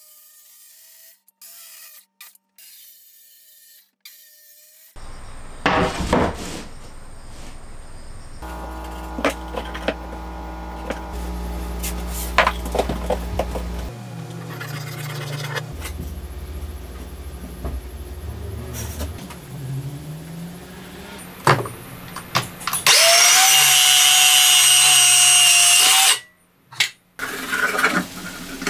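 A series of woodworking sounds from separate clips: a handheld circular saw running and cutting through a board, loudest for about three seconds near the end, alongside knocks and handling of wooden boards.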